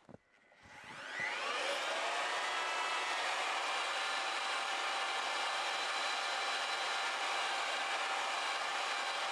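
Corded electric paddle mixer starting up in a bucket of tile adhesive: after a brief silence its motor whine rises quickly to full speed, then runs steadily as it stirs.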